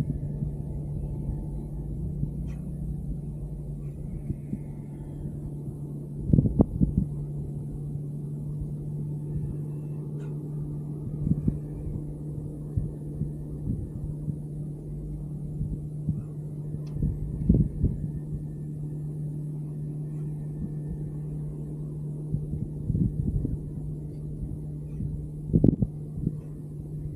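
Wind gusting against the microphone in irregular low thumps, loudest a little after six seconds, near the middle and near the end, over a steady low electric hum.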